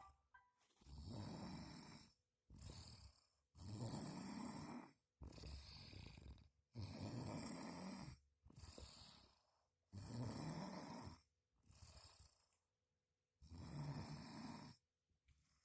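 A sleeping person snoring heavily: five loud, rasping snores about every three seconds, each followed by a shorter, quieter breath.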